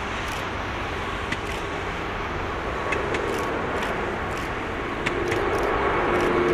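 Rolls-Royce Trent XWB turbofan engines of an Airbus A350-900 climbing out after takeoff: a steady jet roar that grows louder as the aircraft nears overhead, with a droning engine tone coming in over the last few seconds.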